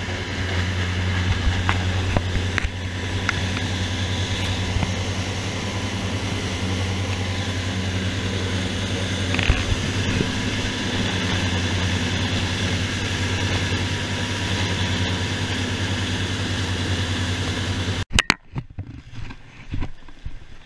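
Sportfishing boat running at speed: a steady low drone from its engines under a rush of wind and churning wake. About eighteen seconds in it cuts off abruptly to a much quieter scene with a few light knocks.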